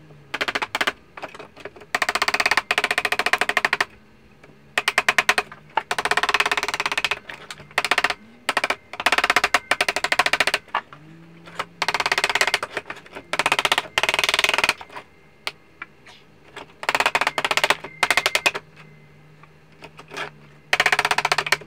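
Hand hammer tapping the edge of a sheet-metal panel over a wooden former, folding the flange. The taps come in quick runs of one to two seconds, with short pauses between.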